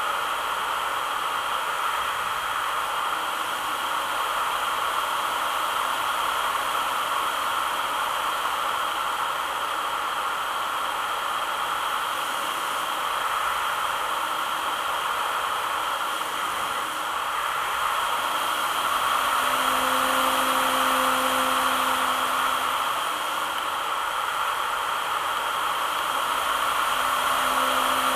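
Steady rushing airflow and whirring of a radio-controlled model aircraft in flight, picked up by its onboard camera. A low steady hum joins in for a few seconds about two-thirds of the way through and again near the end.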